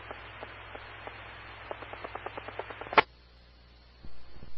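FM repeater audio with the squelch open: steady static hiss with faint crackling clicks. About three seconds in it cuts off with a sharp click as the carrier drops, leaving a fainter hiss and a brief low bump near the end.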